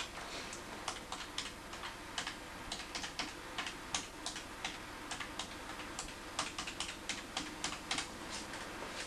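Keys being pressed by hand, short irregular clicks two to four a second, over a faint steady hum.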